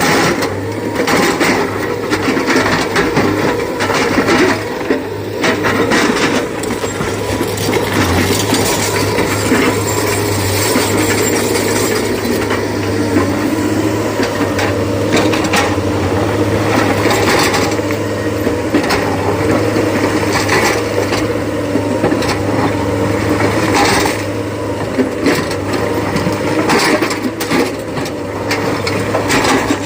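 Excavator at work: its diesel engine runs with a steady low hum while irregular clattering knocks and scrapes come again and again over it.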